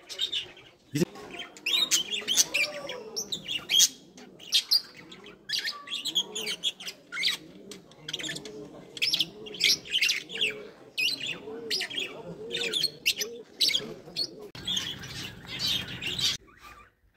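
Caged small birds chirping and chattering steadily, a dense run of short, high calls.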